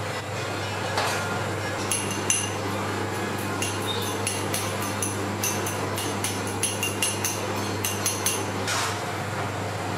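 Metal spoon clinking against a small ceramic bowl in a run of quick, ringing taps, two or three a second, starting about two seconds in. A short scrape comes near the end.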